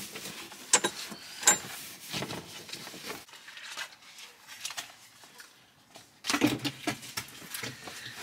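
Handling noise on a plastic chicken-run cover and its wire mesh: rustling with sharp plastic clicks and taps, two of them about one and a half seconds in, and a louder burst of rustling about six seconds in.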